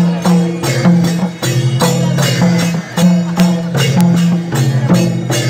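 Music with a steady beat of jingling percussion strikes, about three a second, over a repeating low two-note figure.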